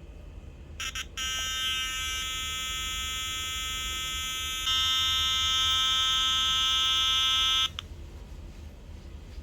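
Small tweeter speaker driven by a two-transistor BC547 oscillator circuit, sounding a steady, buzzy electronic tone. After two short blips it holds for about six seconds, changing pitch twice and getting louder at the second change, then cuts off suddenly.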